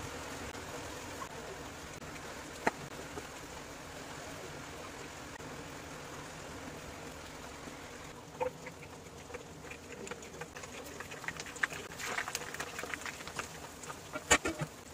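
Cabbage manchurian balls frying in hot oil in a nonstick pan: a run of crackles and pops, densest in the last few seconds with the loudest pop near the end, over a steady low hiss.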